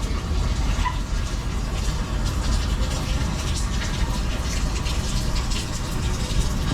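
Rain falling, with water pouring and splashing: a steady rushing noise.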